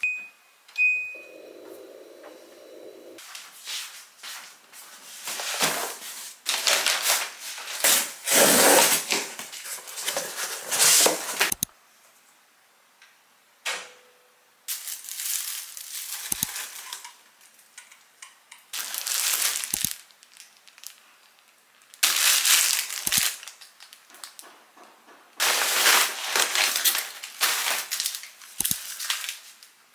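Two short electronic beeps, then repeated bursts of rustling and crackling with a few dull knocks.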